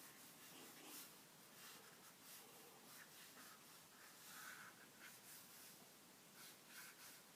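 Faint, soft brushing of a brush pen's tip across drawing paper, in short irregular strokes.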